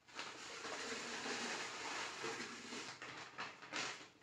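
Powdered organic jaggery pouring from a paper packet into a plastic drum of water: a steady hiss for about three seconds, then a few short rustles and taps as the packet is shaken out.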